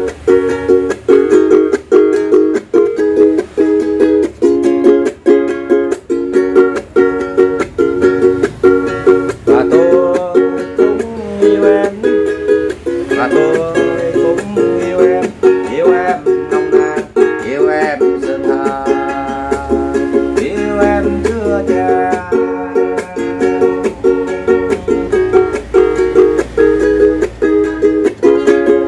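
Ukulele being strummed in a steady rhythm of chords. Through the middle stretch a man's voice comes in over the strumming.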